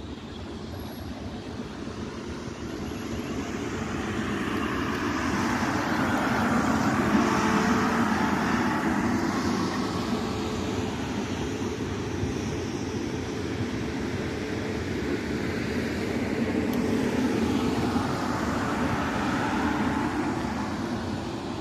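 South Western Railway Class 450 Desiro electric multiple unit passing through the station, wheels rumbling on the rails, with a whine that rises and then falls. It is loudest about seven seconds in and again near the end.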